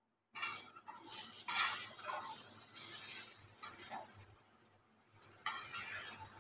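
Boiled chowmein noodles sizzling in a hot wok as a metal spatula stirs and tosses them. Sharp scrapes and clanks of the spatula on the pan come about a second and a half, three and a half, and five and a half seconds in. The sound starts abruptly after a brief silence.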